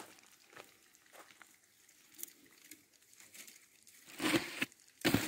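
Split carrizo cane strips rustling, scraping and clicking against each other as they are woven into a basket, with the plastic sack under the basket crinkling. Scattered light ticks, then louder rustling about four seconds in and again near the end.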